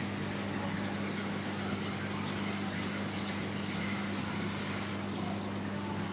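Steady machinery hum with a low electric buzz, the kind of drone the pumps and filtration of large aquarium tanks give off, over an even hiss of running water and air.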